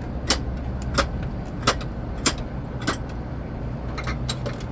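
Metallic clicks and clacks from an antique coin-operated soda vending machine being worked: five sharp clacks about two-thirds of a second apart, then a few lighter clicks near the end, over a steady low hum.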